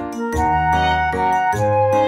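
Instrumental background music: a melody of held notes over a bass line that comes in just after the start.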